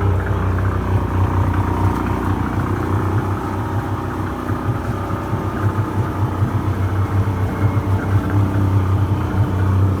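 1996 Johnson 40 hp two-stroke outboard motor running steadily at idle, warming up just after a cold start.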